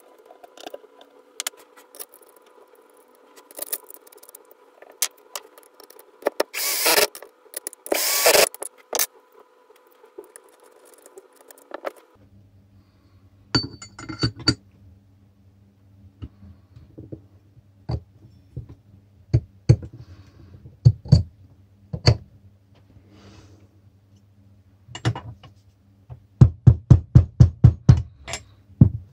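Mechanical work with tools on metal parts: scattered clicks and knocks, two loud short bursts from a tool about seven and eight seconds in, and a quick run of about ten sharp taps near the end.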